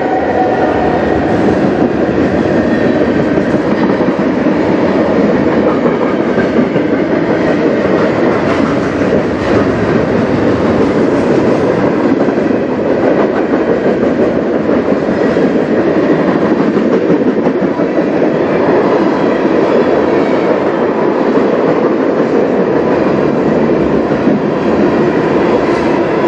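Freight cars of a CN manifest train (covered hoppers, lumber-loaded flatcars and tank cars) rolling past close by. Their steel wheels make a loud, steady rolling rumble on the rails.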